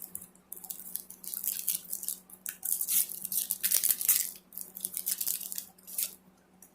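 Trading-card pack wrapper being torn and crinkled while the cards are handled: a rapid string of crackles that stops about six seconds in.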